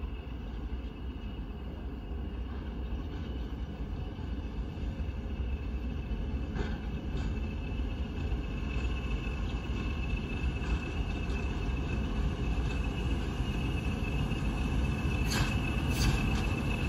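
Diesel locomotive running, a low rumble that slowly grows louder as it nears, with a few sharp clanks near the end.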